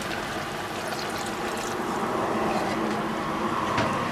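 Chicken adobo sauce boiling in a pot, a steady bubbling hiss. A wooden spatula knocks into the pot near the end as stirring begins.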